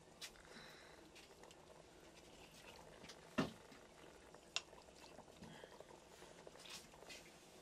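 Raw chicken pieces dropped by hand into a clay handi of wet marinade: faint wet squelches, with a soft thump about three and a half seconds in and a sharper tap about a second later.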